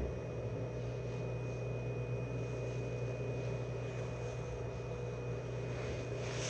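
A 105 series electric train standing still, heard from inside the car: a steady low hum from its onboard equipment, with a thin steady high-pitched whine above it.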